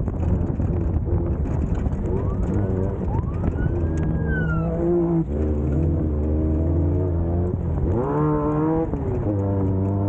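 Class 1600 off-road race car's engine running hard at race pace, its pitch stepping up and down through the gears. About eight seconds in it revs up quickly and drops back at a shift.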